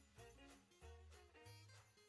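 Quiet background music with a pulsing bass line and a melody of short notes.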